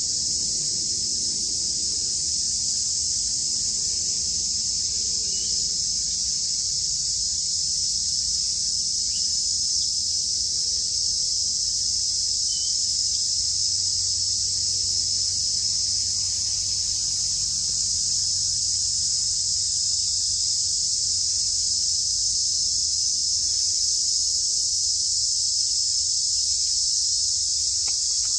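Steady, high-pitched chorus of insects, a continuous shrill buzz that holds an even level.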